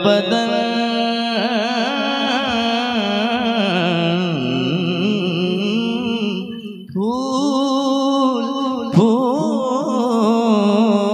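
A man singing a naat, drawing out long, wavering melismatic lines without clear words. He breaks briefly for breath about seven seconds in, then starts a new phrase.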